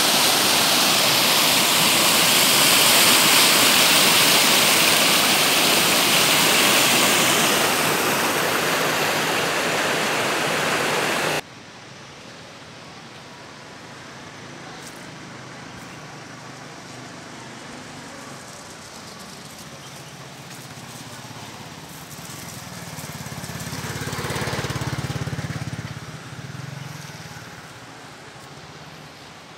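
Shallow mountain stream rushing over rocks, a loud steady wash that cuts off abruptly about eleven seconds in. The rest is a much quieter outdoor background, with a low rumble that swells and fades near the end.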